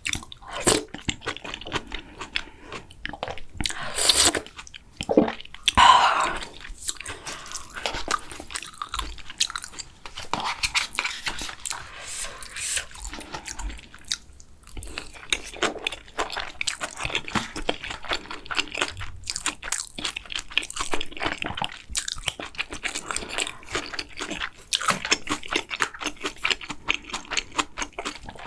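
Close-miked eating sounds: a person chewing and biting food, with dense, crisp crunchy clicks throughout and a few louder, fuller mouthfuls in the first seconds.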